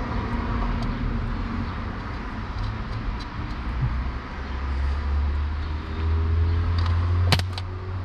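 A socket wrench on the glow plug controller's live battery power-wire terminal touches ground and shorts, giving one sharp crack of a spark near the end. Under it runs a steady low rumble that swells in the second half.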